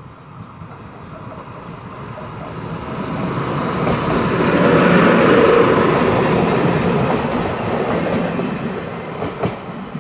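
Săgeata Albastră diesel railcar passing close by: engine and wheel noise swell to a peak about halfway through and fade as it pulls away, with the clatter of wheels on the rails and a couple of sharp clicks near the end.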